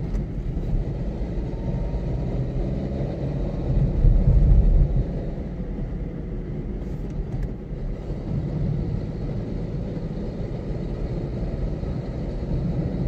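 Steady low rumble of a new Suzuki Alto's 660cc three-cylinder engine and its tyres, heard inside the cabin while driving. It swells briefly about four seconds in. The owner finds this engine noise unusually loud for the model, 'like sitting inside a truck', and is taking the car in to have a fault found.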